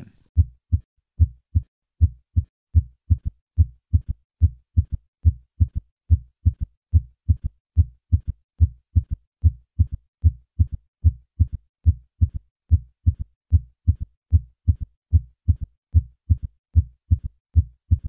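Heart sounds: a steady rhythm of short, low-pitched thuds, each beat's first and second heart sounds followed by a third heart sound early in diastole (a ventricular gallop). In patients over 40 this extra sound usually goes with a decreased ejection fraction.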